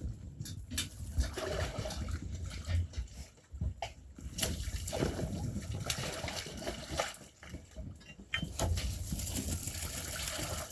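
Water splashing and sloshing in irregular bursts, with scattered knocks.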